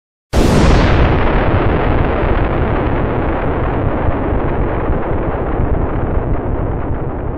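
Explosion sound effect: a sudden blast about a third of a second in, its bright top dying away within the first second, then a long low rumble that slowly fades.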